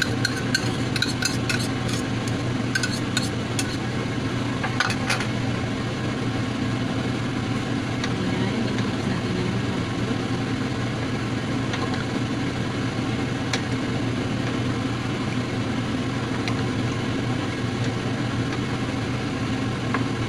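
Clinks of a bowl against a stainless steel cooking pot, several in the first five seconds, then a few scattered taps as a wooden spatula stirs the stew. A steady low hum runs underneath.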